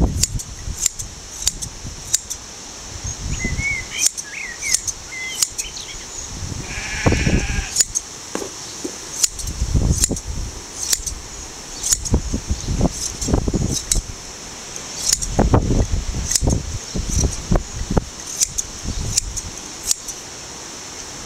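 Hand blade shears snipping through a Shetland sheep's fleece, a run of short crisp clicks at irregular intervals. A sheep bleats once about seven seconds in, and wind gusts rumble on the microphone at times.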